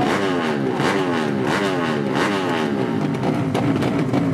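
Engines of 200 cc underbone drag-racing motorcycles at high revs, the engine note sliding down in pitch several times in a row.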